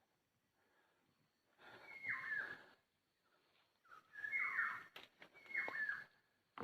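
Whistled calls, three of them about two seconds apart, each a clear note that drops in pitch. A sharp click comes about five seconds in.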